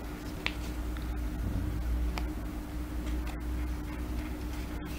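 A few faint ticks and crinkles of a sheet of origami paper being pinched and creased by hand, over a steady low hum.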